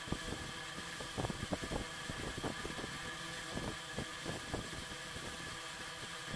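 Black fine-liner pen scratching and tapping on sketchbook paper in short strokes as small petals are drawn, heard as irregular ticks and scrapes over a steady background hiss with a faint hum.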